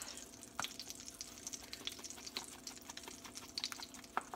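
Butter and olive oil heating in a cast-iron skillet, crackling and spitting with many light, irregular ticks, over a faint steady hum.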